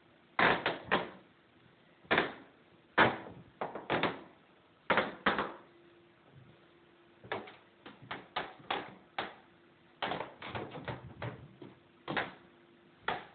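A badly squeaking floor creaking and squeaking under someone's weight: a string of short, sharp creaks at irregular intervals, some in quick clusters.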